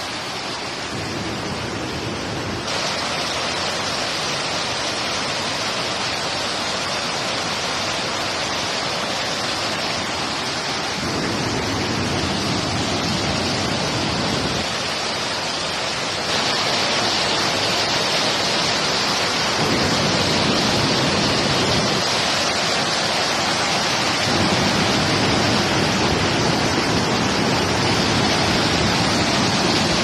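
Waterfall: white water pouring down a rocky cascade, a steady rushing noise that gets louder in a few steps.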